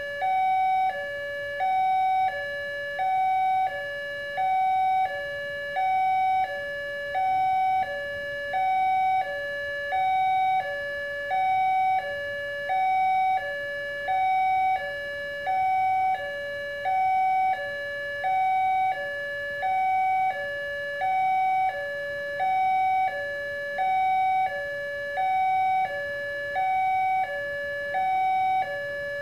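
Railway level-crossing warning alarm sounding from the loudspeaker on the crossing signal post: an electronic two-tone signal alternating steadily between a higher and a lower tone, about one high-low pair a second, the usual warning that a train is approaching and the crossing is closed.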